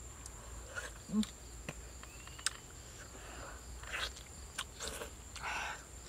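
Close-up eating sounds of steamed fish taken by hand: wet mouth smacks, chewing and a few sharp clicks, with a longer slurping smack near the end. Behind it, a steady high-pitched insect drone.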